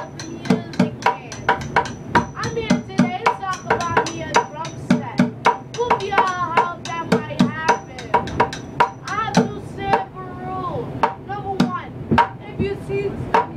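Street bucket drumming: drumsticks beating a fast, busy pattern of sharp hits on an upturned plastic bucket, with a voice wavering over it. The hits thin out for a moment late on, then pick up again.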